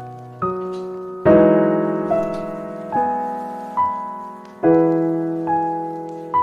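Slow, gentle solo piano: single notes and soft chords struck about once a second, each left to ring and fade before the next.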